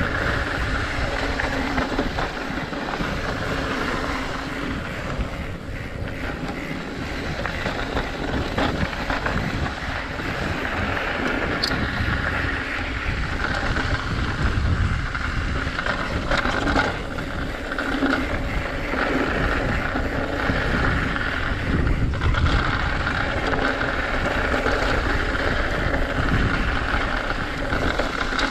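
Wind rushing over an action camera's microphone and tyres rolling over a dirt trail while riding a mountain bike, with a few sharp clicks and rattles from the bike.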